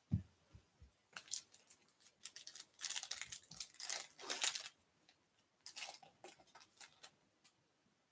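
Foil wrapper of a Topps baseball card pack being torn open by hand: a dense run of crackling, crinkling tears for a few seconds, then a sparser run of crinkles as the cards are slid out. One soft thump at the very start.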